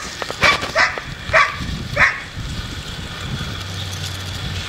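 Portuguese water dog puppies giving about four short yips in the first two seconds.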